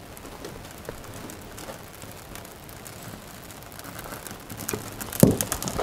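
Birch-bark kindling catching fire in a wood-burning stove's firebox, with faint hiss and scattered small crackles. A sharper knock with a few clicks comes near the end.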